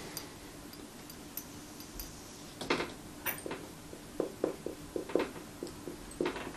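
Marker pen writing on a whiteboard: a string of short, irregular squeaks and taps as letters are drawn, starting about two and a half seconds in.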